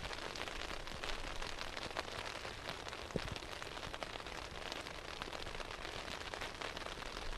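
Steady rain, an even hiss with scattered irregular ticks of drops, over a low steady rumble.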